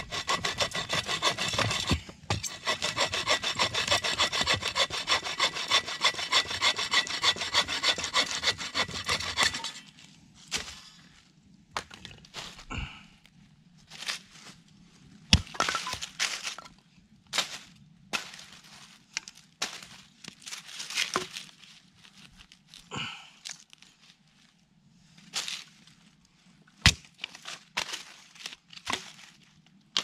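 Hand saw cutting through a dead branch with fast back-and-forth strokes for about ten seconds. Then the sawing stops and scattered sharp cracks, knocks and rustles follow as the cut wood is handled.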